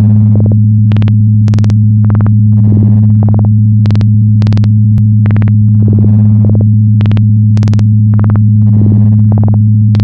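Synthesized sci-fi laser-charging sound effect: a loud, steady low electronic hum with sharp zaps pulsing about twice a second, and a burst of hiss roughly every three seconds.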